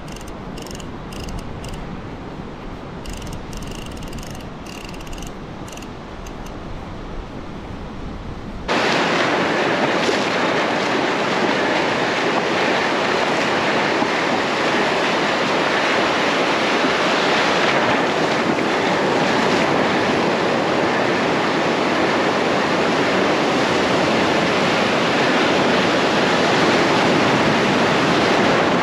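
Surf washing in and foaming close by, with wind on the microphone: a loud, even rush that starts abruptly about nine seconds in. Before it, a quieter stretch of low wind rumble with scattered faint clicks.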